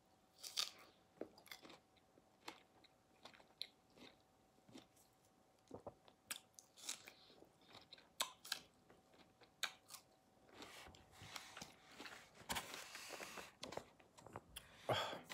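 Fresh strawberries being bitten into and chewed: soft, wet mouth smacks and clicks scattered throughout, with a longer stretch of steadier chewing past the middle.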